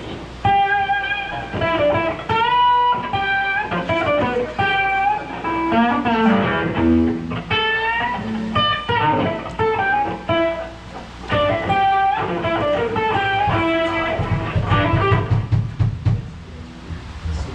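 Electric guitar playing blues lines during a sound check: single-note phrases with several bent notes, and some low notes near the end.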